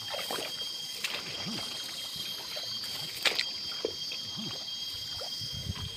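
Dry rice straw rustling and crackling in short bursts as it is cut and gathered by hand in a wet paddy, with small sloshes of water and mud, over a steady high-pitched drone.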